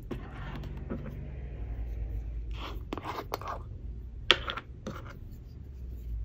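Close-up handling of containers on a wooden table over a steady low hum: scraping and rubbing as a milk carton is moved aside and a glass honey jar's lid is twisted off, with a sharp click about four seconds in as the lid comes off or is set down.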